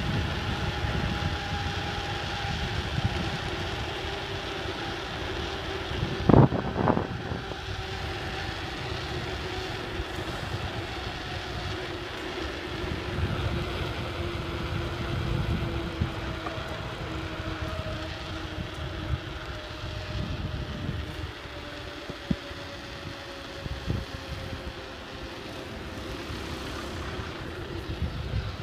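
Wind and rolling noise from a moving bicycle, with a faint hum that slowly drops in pitch and two sharp knocks about six seconds in.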